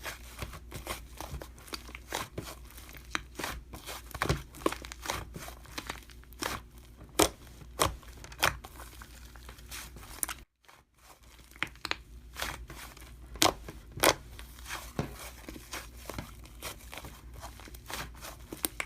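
Slime being squeezed and pressed by hand: a dense run of crackling clicks and pops, broken by a short dead gap about ten and a half seconds in.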